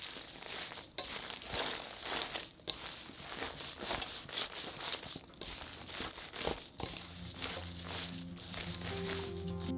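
A gloved hand tossing and squeezing a bowl of jjokpa (Korean small green onions) coated in chili-powder seasoning: wet, crinkly rustling of the stalks with repeated short scrunches. Music comes in near the end.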